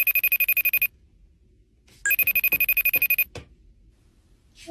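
Telephone ringing twice, each ring a rapid trilling burst of about a second, the second starting about two seconds after the first.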